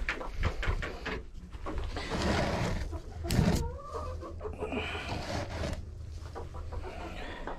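Chickens clucking in the coop, with a few sharp knocks and scrapes among them.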